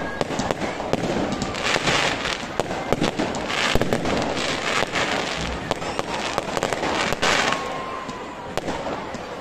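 Fireworks going off: a rapid run of sharp cracks and bangs, with bursts of hissing crackle as rockets and ground fountains fire.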